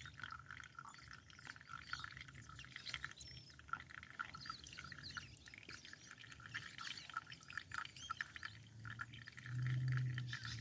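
Faint birdsong: many short chirps and twittering calls, over a low steady hum that swells briefly about nine seconds in.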